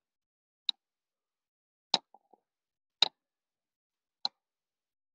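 Footsteps on a leaf-strewn woodland path, heard as four short, sharp taps a little over a second apart, with nothing in between.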